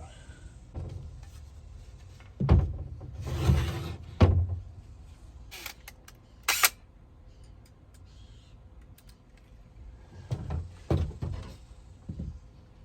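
A string of separate thumps and knocks, as of things being handled and set down or a door being worked, with a short scraping rush about three and a half seconds in and a sharp click about six and a half seconds in.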